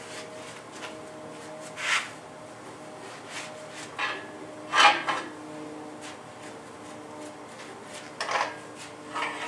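Paper towel wiping down a bare V8 engine block on an engine stand: a few short scraping rubs and knocks, the loudest about halfway through.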